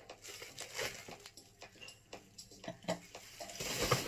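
Paper and bubble-wrap packing rustling and crinkling in irregular bursts as a gin glass is unwrapped, with a soft knock near the end as the glass is set down on a wooden table.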